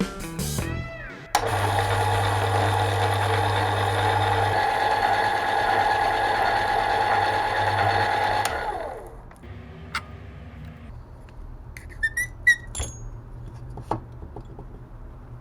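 An electric motor runs steadily for about seven seconds, then winds down with falling pitch as it is switched off. A few light clicks and taps follow.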